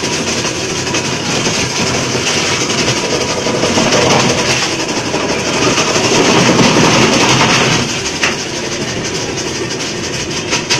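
Electric ice block crusher running and grinding blocks of ice into crushed ice, a loud, dense, continuous noise that swells louder in the middle, with one sharp knock about eight seconds in.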